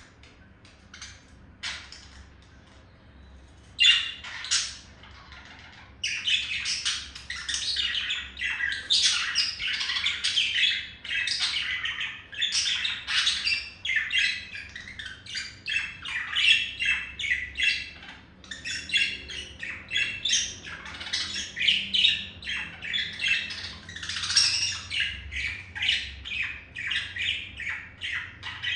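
Male budgerigar warbling its courtship song: a fast, unbroken chatter of squawks and chirps. A few faint clicks and two short loud calls about four seconds in come first, and the steady warble begins about six seconds in.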